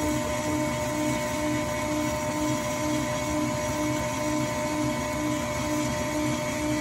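KitchenAid Classic Plus stand mixer running steadily, its wire whip beating ricotta cheesecake batter in a stainless steel bowl: a steady motor whine over a low hum that pulses about two to three times a second.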